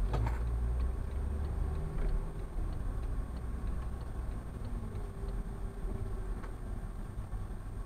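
Turn-signal indicator ticking about three times a second over low road and engine rumble inside a moving car. There is a knock right at the start, and the ticking stops about five seconds in.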